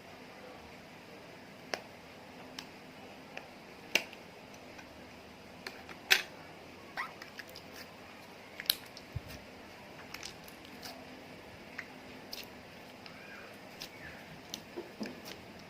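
Slime being mixed and handled: irregular sharp clicks and taps, roughly one to three a second, over a faint steady hiss. The loudest click comes about six seconds in.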